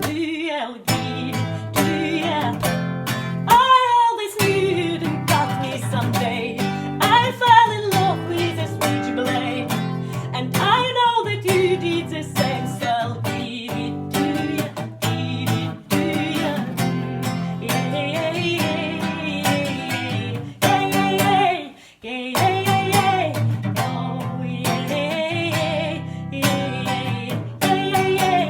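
Acoustic guitar strumming chords, with a voice singing wordless slides that fall in pitch, three of them in the first half.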